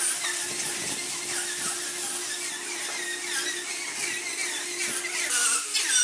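Electric angle grinder with a sanding disc running steadily and rubbing across carved wood, a constant high motor whine under the scratchy rasp of the abrasive on the wood surface. About five seconds in the whine drops a little lower.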